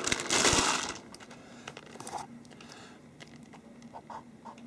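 A bag of hazelnuts rustling and crinkling loudly for about the first second as it is handled off the platform scale, then faint scattered taps and scratches of a pen writing in a notebook.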